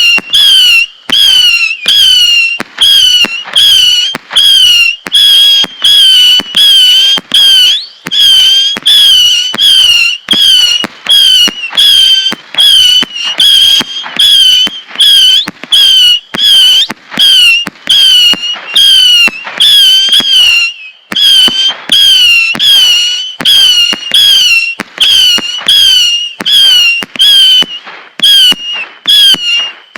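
Red Apple Fireworks Zappers 100-shot missile battery firing a rapid string of whistling shots, about two a second. Each shot is a short, shrill whistle that ends in a sharp crack.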